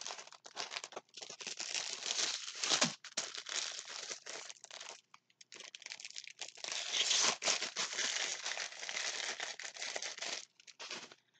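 Plastic packaging crinkling in irregular bursts as a rolled diamond painting canvas is slid out of a grey mailer bag. There is a short pause about halfway through, and the rustling is louder after it.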